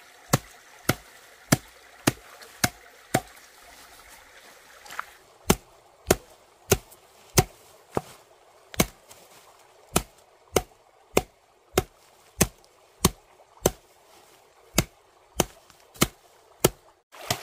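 Steady chopping strokes, a blade hacking at a bamboo pole and the grass around it, about one and a half strokes a second with a short pause about four seconds in. A faint trickle of stream water sits under the first few strokes.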